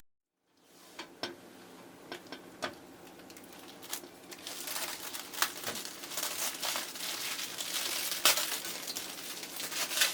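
Faint crinkling and crackling with scattered sharp clicks, starting after a moment of silence and slowly growing louder.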